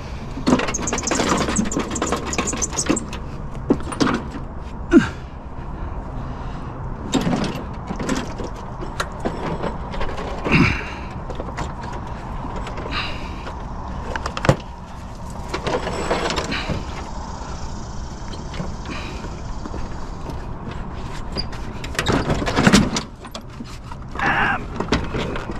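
Scrap items such as lawnmower and bicycle parts being handled and moved, giving irregular knocks, clanks and scraping over a steady low rumble.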